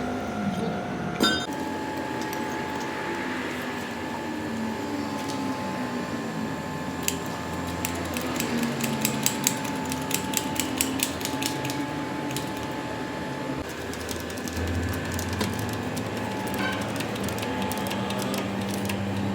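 Metalworking in a workshop: irregular sharp metal clicks and clinks over a steady mechanical background, then a steady low machine hum that sets in about three-quarters of the way through.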